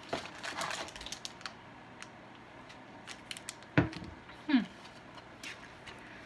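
Plastic candy wrappers and packaging rustling and crinkling as snacks are handled, with scattered light clicks and a short hummed vocal sound about four seconds in.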